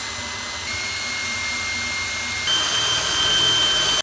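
Cordless drill drilling a hole into a wooden box, its motor whining steadily. The whine steps up in pitch slightly about a second in, then higher and louder about two and a half seconds in as the trigger is squeezed harder, and stops abruptly at the end.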